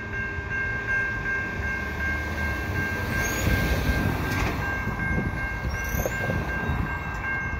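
Level-crossing warning bell ringing steadily while the crossing gates rise, over the low rumble of a departing freight train's last tank cars.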